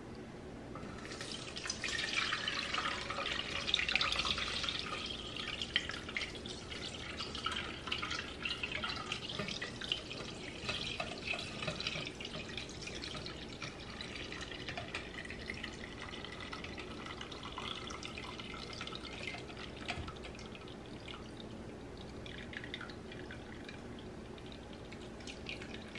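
Chicken broth being poured from a heavy pot through a fine mesh strainer into a stainless steel pot: a steady splashing trickle, strongest a couple of seconds in and thinning out over the rest of the pour.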